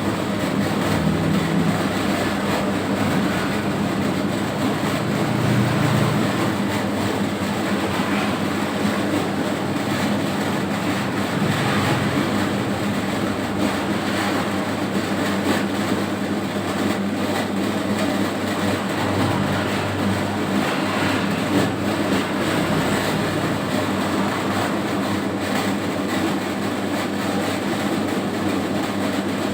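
Home-built 3 kg dough mixer running: a steady mechanical drone of its motor and drive, even throughout.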